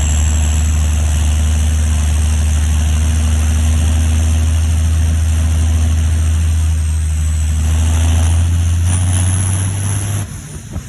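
John Deere 7530 Premium tractor's six-cylinder turbo diesel running steadily on transport, a deep engine drone with a high turbo whistle over it. Near the end the whistle climbs briefly, then the engine sound drops off sharply.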